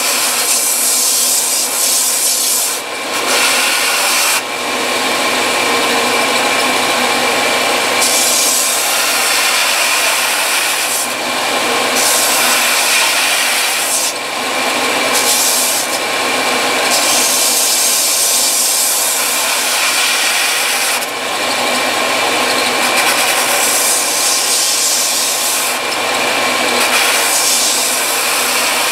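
Vertical belt sander running with a steady whine while a rifle stock's recoil pad and butt are ground against the abrasive belt. The grinding hiss swells and drops every few seconds as the pad is pressed on and eased off to shape it flush with the stock.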